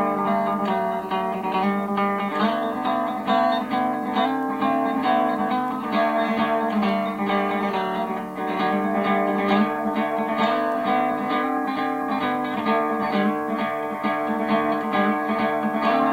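Acoustic guitar playing, a continuous run of plucked notes over sustained lower tones, in a lo-fi recording.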